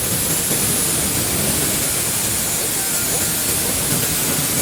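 Electric arc welding: a steady, loud crackling sizzle of the arc on the steel canopy framing.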